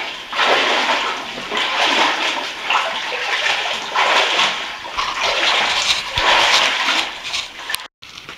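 Water in a cave passage splashing and sloshing in repeated surges about once a second, as of someone wading through a stream. It cuts off suddenly near the end.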